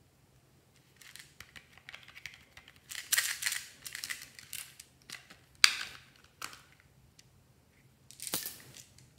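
Hands handling a plastic toy keyboard: short bursts of rustling and scraping, with a sharp plastic click about halfway through that is the loudest sound, a second click soon after, and a last rustle near the end. None of the keys are played.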